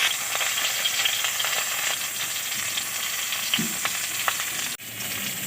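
Pumpkin-leaf-wrapped lentil paturi parcels sizzling in hot mustard oil in a kadai: a steady frying hiss with scattered small crackles and pops. The sound drops out for an instant near the end.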